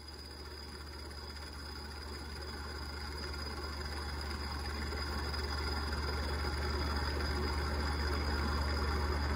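Steady low hum with a rushing, airy noise from a large pedestal fan, growing gradually louder.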